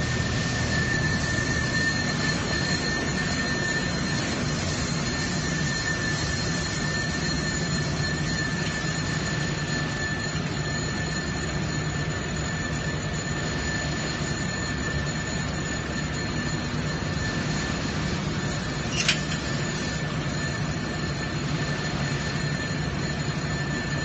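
Farm tractors and corn-silage machinery running steadily: a low engine drone with a steady high-pitched whine over it, and one sharp click about three-quarters of the way through.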